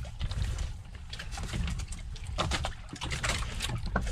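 Steady low rumble of water and wind around a fishing boat at sea, with scattered small clicks and taps of plastic plates and a spoon being handled during a meal on deck.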